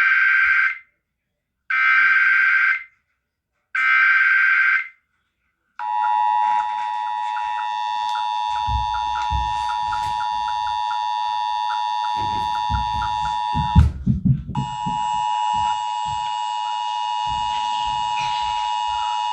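Emergency Alert System (EAS) data header: three one-second bursts of warbling data tones about two seconds apart. These are followed by the steady two-tone EAS attention signal, which breaks briefly about fourteen seconds in, where a few low thumps come through.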